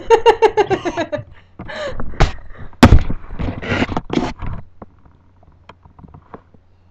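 A girl's high-pitched laughter in quick pulses, then rustling, bumps and one sharp knock about three seconds in as the laptop webcam is handled, fading to a few faint clicks.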